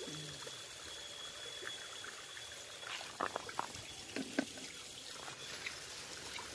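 Small stream flowing with a steady trickle, and a few short splashes in the water between about three and four and a half seconds in.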